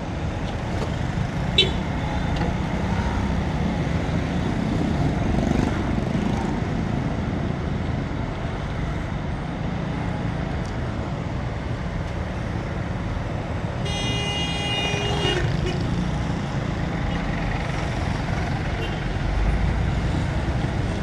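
City street traffic heard from a moving motorcycle: a steady engine and road rumble, with a short sharp toot about a second and a half in and a vehicle horn sounding for about a second and a half around two thirds of the way through.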